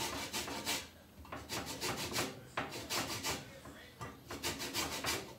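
A lemon being rubbed against a grater to take off its zest: quick rasping strokes, about four or five a second, in short runs with brief pauses.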